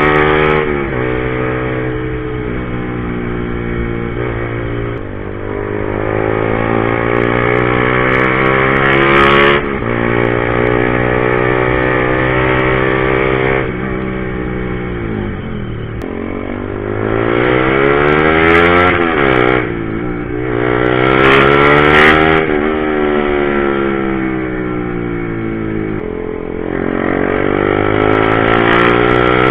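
Honda CBR150R single-cylinder four-stroke engine pulling hard through the gears: its pitch climbs and drops back at each upshift every few seconds. Near the middle it winds down as the throttle closes, then revs up sharply again a few times before climbing once more.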